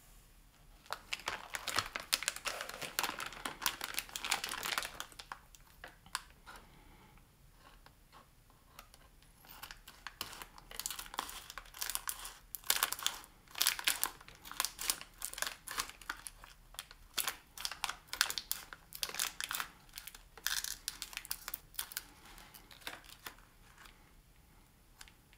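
Packaging crinkling and rustling as it is handled by hand during an unboxing. It comes in two spells of dense crackling, with a short lull between them.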